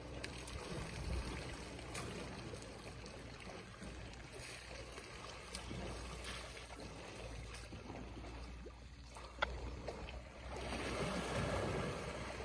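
Elephants wading and bathing in shallow dam water close by, water sloshing and trickling over a low wind rumble on the microphone, with a sharp click about nine seconds in. The splashing grows louder near the end as an elephant throws water with its trunk.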